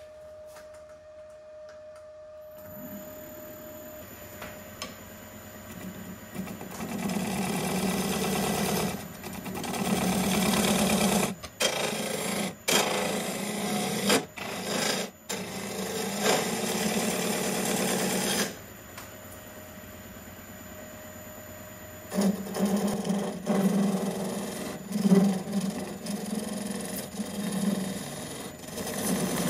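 A wood lathe starts up about two seconds in, then a woodturning gouge cuts the face of the spinning hawthorn burl and epoxy resin blank. The cutting is loud and rough, breaks off briefly a few times, pauses for a few seconds with only the lathe running, then resumes near the end.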